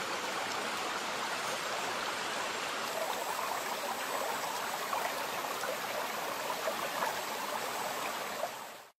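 Shallow stream running over rocks: a steady, even rush of flowing water that cuts off suddenly near the end.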